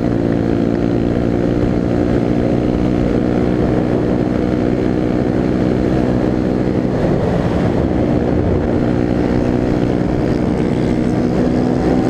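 Enduro motorcycle engine running steadily at cruising speed, heard from on board over a low rumble; the engine note wavers briefly about seven seconds in.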